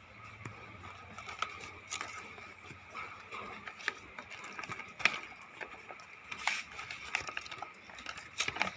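Scattered clicks and knocks of objects being handled, over a faint steady high-pitched hum.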